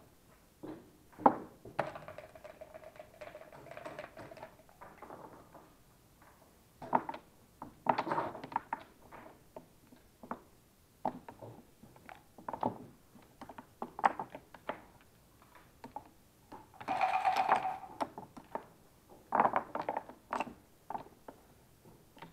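Backgammon checkers clicked and slid into place on the board, a string of light clicks and knocks, with dice rattled in a cup and thrown onto the board in two longer rattles, one a couple of seconds in and one near the end.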